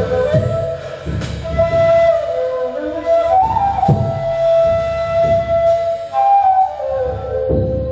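Ney (end-blown reed flute) playing long held notes that slide between pitches, over low drum strokes about once a second.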